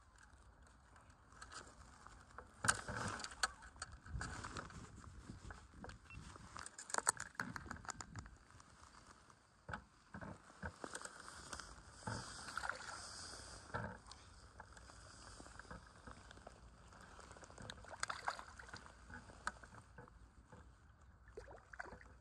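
Faint small lapping and splashing of lake water at the fishing spot, with scattered light clicks and knocks from handling the fishing rods and tackle.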